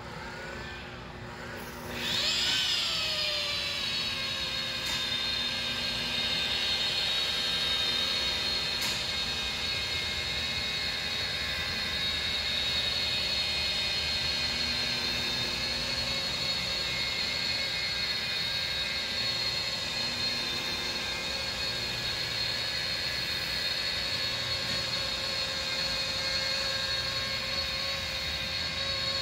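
Electric rotary polisher buffing a truck's painted panel. About two seconds in, its motor whine jumps up and sags in pitch, then runs steadily at a high pitch as the pad works the paint.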